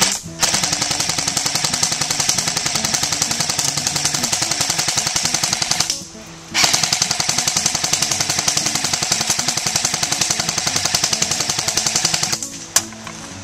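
Well R22 M4 electric airsoft gun firing on full auto: two long bursts of about six seconds each, a rapid, even rattle of shots with a short pause near the middle.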